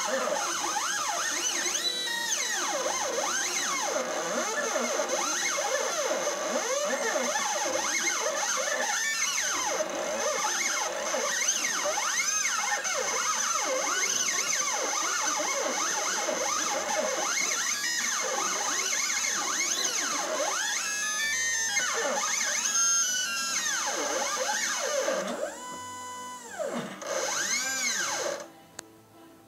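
Stepper motors of a StepCraft 420 CNC machine whining in pitches that keep rising and falling as the axes speed up and slow down, moving the pen while it plots a drawing. The whine stops about a second before the end.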